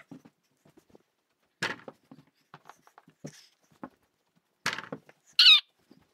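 Sped-up audio: a boy's voice pitched up into short squeaky yelps, with a high scream a little past the middle. A few sharp thuds come from the small ball hitting the door-mounted mini basketball hoop.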